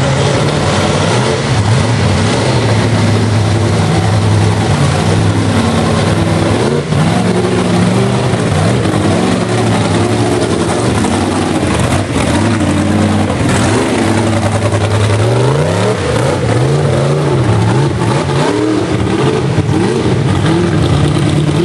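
Chevrolet big-block V8 of a rock bouncer buggy running hard under load on a rocky hill climb. It holds a fairly steady pitch through the first half, then revs up and down again and again over the last several seconds.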